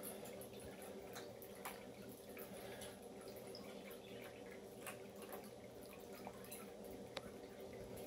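Electric pet drinking fountain running: a faint, steady low pump hum under water trickling and dripping, with a few small drips or clicks scattered through.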